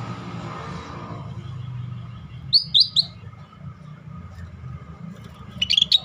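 Scaly-breasted bulbul calling: a quick run of three sharp, high notes, each sliding down, then a tighter burst of notes near the end, over a steady low background rumble.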